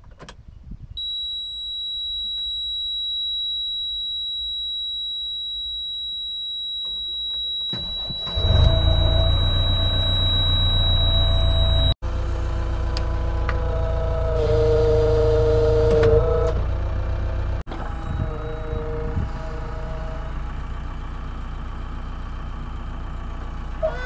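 Steady high-pitched dashboard warning beep with the ignition on, then the JCB 3DX backhoe loader's diesel engine starts suddenly about eight seconds in and keeps running, with a higher whine joining in for a couple of seconds in the middle.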